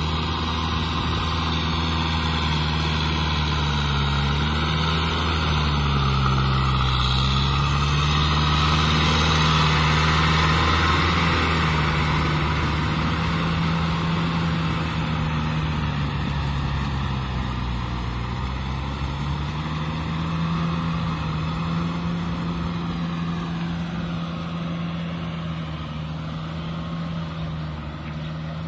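Kubota tractor's diesel engine running steadily as it works a rotavator through a flooded rice paddy, with the churning of mud and water beneath it. The engine note dips twice, and the sound grows louder as the tractor passes close, then slowly fades as it drives away.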